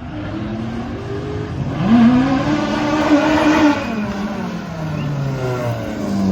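Hill-climb race car engine accelerating hard as it passes: its pitch climbs steeply about two seconds in, holds high and loud for a couple of seconds, then falls away.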